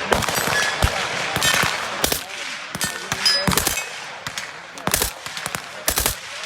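Gunshots at an irregular pace, about a dozen, each with a short echo; a few are followed by a brief high metallic ring.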